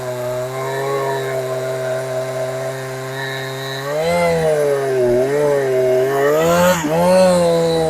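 A two-stroke chainsaw, a Chinese clone of the Husqvarna 372XP running on a genuine Husqvarna carburettor, running at high speed. Its pitch holds steady for about four seconds, then dips and recovers several times, with one sharp dip near the end.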